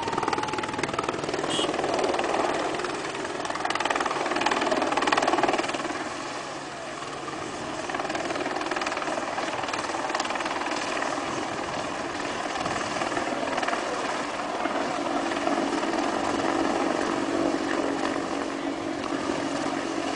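AH-64 Apache attack helicopter flying a display pass, its rotors and twin turbine engines giving a steady, dense beating roar that swells about four to six seconds in, eases briefly, then holds level.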